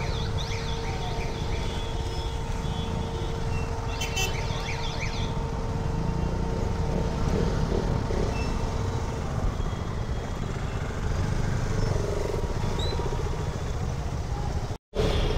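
Motorcycle engine running at low speed in heavy traffic, a steady low rumble throughout. A steady tone runs through the first half, and a short burst of higher-pitched sounds comes about four seconds in.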